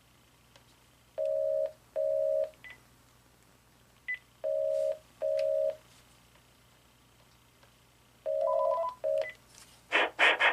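Panasonic KX-TG5453 cordless phone handset sounding its intercom call tone: two pairs of short, steady beeps about three seconds apart, then another double beep with a higher tone added. A few soft key clicks come between the beeps, and loud brief sounds come just before the end.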